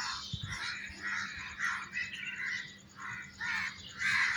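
A flock of birds calling, a string of short, rough calls, several overlapping, that swell into a loud dense chorus near the end.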